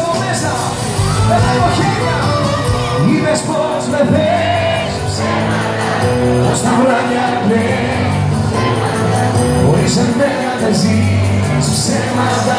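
Live band playing Greek pop music in a hall, a wavering melody line over drums, bass and guitars.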